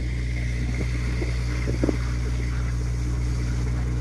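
Engine running with a steady, even low hum, from the food truck parked close by.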